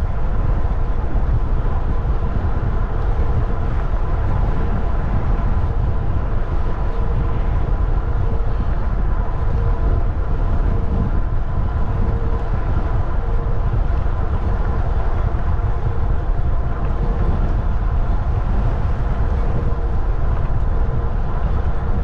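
Steady wind rush and low rumble on the camera's microphone while cycling along a paved trail, with a faint steady hum running through it.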